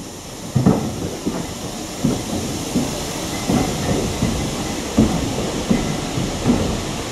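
Heritage railway carriage rolling slowly along the line, heard from on board: a steady rumble with heavy clunks of the wheels over rail joints, one roughly every half second to a second.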